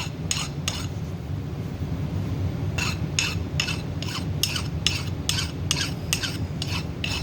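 Hand file scraping across a steel 302 Ford connecting rod, breaking the edge of the big-end housing bore to take off burrs: a few quick strokes, a pause of about two seconds, then a steady run of about two to three strokes a second. A steady low hum runs underneath.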